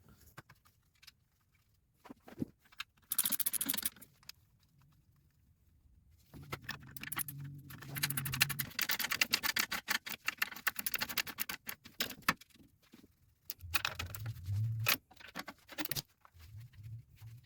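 Irregular metallic clicking and rattling from hands pushing a hydraulic clutch slave cylinder into its mount on the bell housing, with a short burst of clatter about three seconds in and a longer run of clicks later on.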